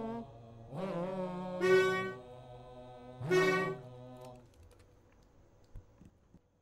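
A wind instrument, sounding like a saxophone, plays a few slow held notes, each scooping up in pitch at its start. The last note ends about four and a half seconds in, leaving near silence with a couple of faint clicks.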